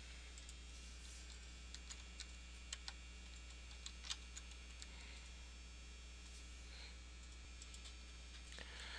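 Faint, irregular computer keystrokes over a low, steady hum.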